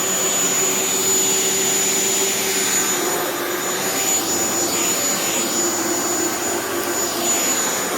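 Shark Vertex corded stick vacuum running steadily: an even rush of suction with a thin, high steady whine over it, a sound described as quiet and purring.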